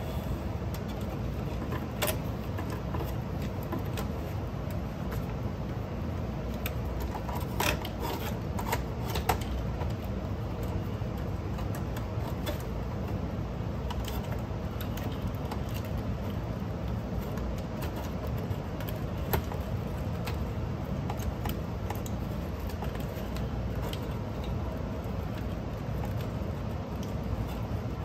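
Sparse metallic clicks and clinks of a cassette deck's tape transport and chassis parts being handled and fitted together, with a few sharper knocks scattered through, over a steady low background rumble.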